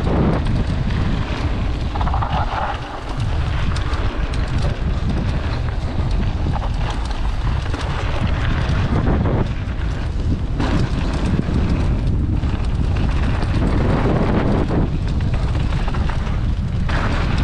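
Heavy wind rush on the microphone of a mountain bike descending fast, mixed with the tyres rolling and crackling over a loose gravel trail.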